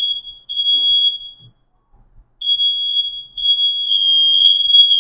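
Smoke alarm sounding: a loud, steady, high-pitched electronic tone that breaks off about one and a half seconds in and comes back about a second later.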